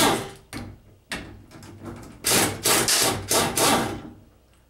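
Impact wrench running in several short bursts, hammering out the 10 mm bolts of a power steering pump's pressure regulator valve cover. The last burst ends about four seconds in, and then it stops.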